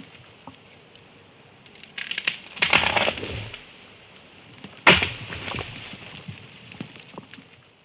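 A tree falling: wood cracking and splintering builds into a loud crash about three seconds in, then a second sharp, heavy impact near five seconds fades out amid small crackles of branches.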